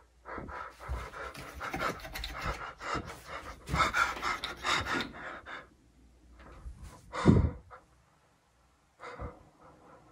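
A person's heavy, rapid breathing close to the phone's microphone, in quick irregular puffs that fade out after about five seconds. About seven seconds in comes one loud thump, and a shorter burst of breath or rustle follows near the end.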